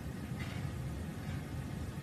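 Steady low rumbling hum under a hiss, with a faint brief higher sound about half a second in.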